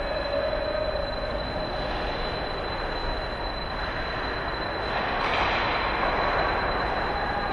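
Steady rushing ambience in a large, almost empty ice hockey arena, with a constant high whine over it. The rush swells about five seconds in, with distant skating play at the far end of the rink.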